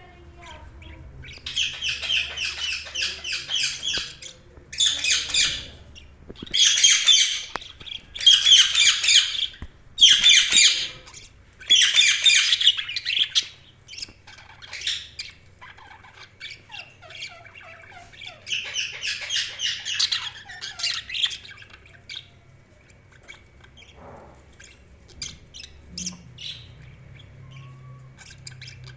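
Budgerigars chattering: loud bursts of rapid chirps, each a second or two long, through the first half and again about two-thirds in, with softer, scattered chirps toward the end.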